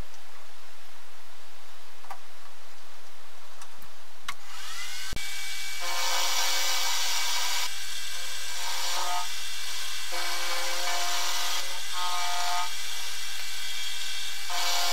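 Small milling machine spindle starting with a rising whine about four seconds in. Then the end mill cuts the top of a round steel part held in a collet block: a steady machining noise with tones that shift as the cut goes on.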